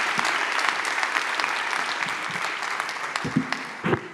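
Audience applauding, a dense patter of many hands clapping that thins and fades out near the end, with two dull knocks just before it dies away.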